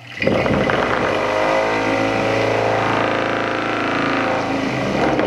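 A small electric fan with a deliberately unbalanced impeller switches on suddenly and runs loud and steady, shaking on neoprene rubber mounts. The mounts are underloaded and barely deflect, so they do not isolate its vibration and the whole unit bounces on the table.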